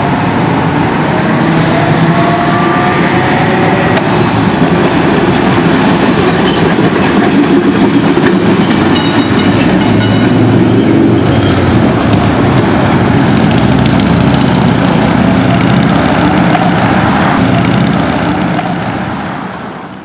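New Orleans streetcar approaching and running past on its rails with a steady rumble, with a faint rising whine in the first few seconds. The sound fades out at the end.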